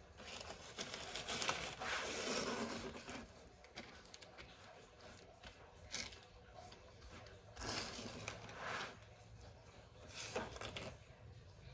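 Faint rustling and scraping from food being handled during cooking, in a few separate spells, the longest in the first three seconds, with a couple of small clicks in between.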